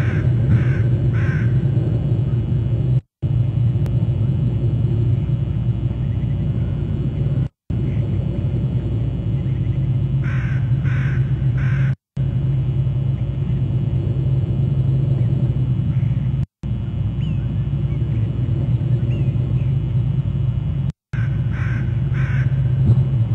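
Steady low rumble from an outdoor wildlife-cam microphone, with a bird giving sets of three or four harsh, evenly spaced calls at the start, about ten seconds in and near the end. The sound cuts out completely for a moment every four or five seconds.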